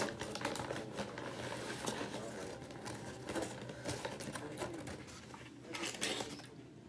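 Foil-lined paper sandwich bag crinkling and rustling as a fried chicken sandwich is pulled out and handled, with faint talk underneath.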